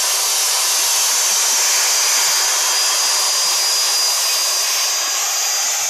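Corded electric drill spinning a wheel attachment against the roof edge of a VW bus, grinding Bondo body filler off the rusted steel. It makes a steady hissing grind with a thin high whine running through it.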